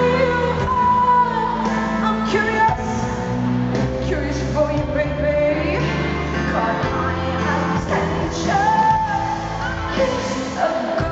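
A live pop-rock band playing with a woman singing lead into a handheld microphone, amplified through an arena sound system.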